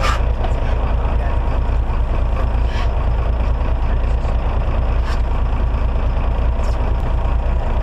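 Fishing boat's engine running steadily, a loud low drone, with a few brief faint clicks.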